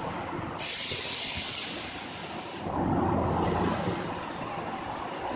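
Factory machinery running in a CNC gear-machining cell. A loud hiss starts about half a second in and fades over a couple of seconds, then gives way to a steady, lower machine running noise.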